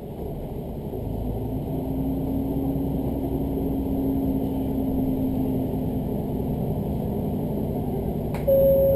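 Diesel railcar running, heard from inside the passenger cabin: a low engine and wheel rumble that grows louder as the train gathers speed, with a whine that holds for several seconds. Near the end a sudden steady tone starts with a click.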